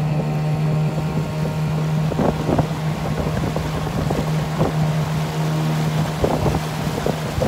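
Outboard motor on a small boat running at a steady cruising speed, one even engine note, with wind buffeting the microphone and the odd splash of water against the hull.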